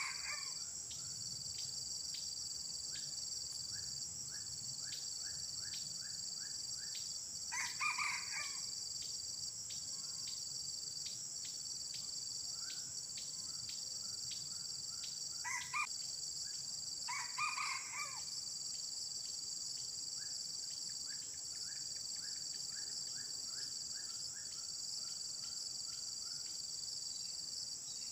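Red junglefowl cock crowing: short, clipped crows four times, the last two close together. A steady high-pitched insect drone runs under them.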